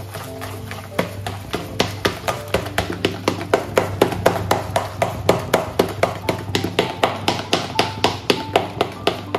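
Urad dal batter being beaten in a bowl: a rhythmic series of wet slapping strokes, about four a second, starting about a second in, as air is beaten into the batter to make it light for vadas. Background music with a melody plays under it.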